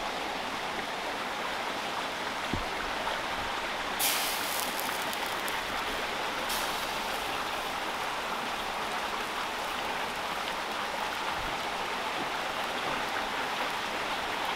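Spring-fed stream running steadily over rocks, with a brief louder hiss about four seconds in.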